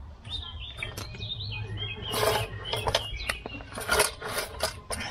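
Scraping and rubbing as an old mechanical bathroom scale is shifted over gravelly soil and a bicycle trailer's wheel is set onto it, with several short knocks.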